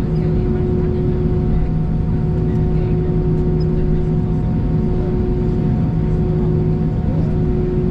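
Steady cabin noise inside an Airbus A319 taxiing with its engines at idle: a constant rumble with a steady hum running through it.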